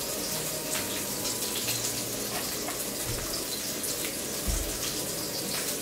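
Lamb chops searing in a little oil in a pan: a steady sizzle with faint scattered crackles.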